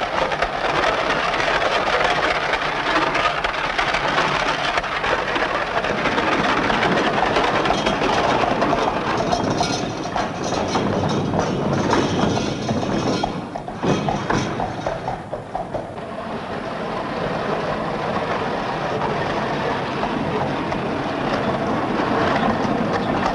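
Horse-drawn carriage rolling over cobblestones: wheels and hooves clattering in a steady, dense rattle that goes briefly quieter a little past the middle.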